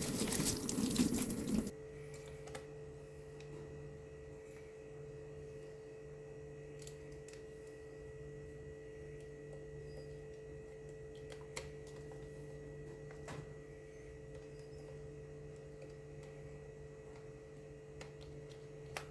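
Water running in a toilet cistern cuts off abruptly about two seconds in. After that there is only a faint steady hum with a few scattered faint ticks.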